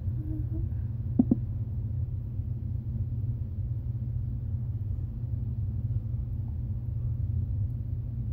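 Steady low rumble with two quick light knocks about a second in.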